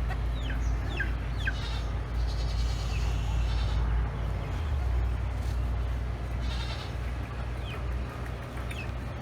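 Farmyard animal sounds: short, high, falling chirps, mostly in the first two seconds, and a few bleat-like calls over a steady low rumble.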